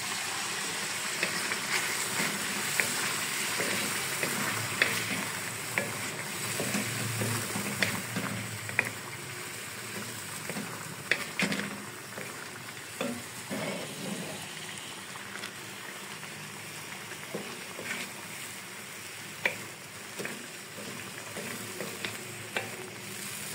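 Chicken pieces and whisked yogurt sizzling in hot oil in an iron karahi, with a wooden spoon stirring and scraping the pan in scattered clicks. The chicken is starting to fry in the water the yogurt gives off, and the sizzle eases off a little about halfway through.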